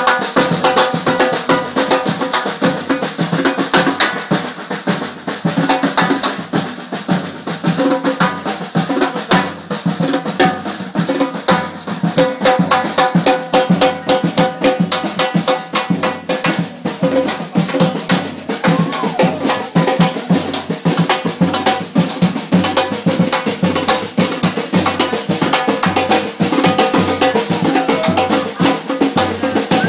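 Live samba percussion group (batucada) playing a fast, steady rhythm on snare and bass drums.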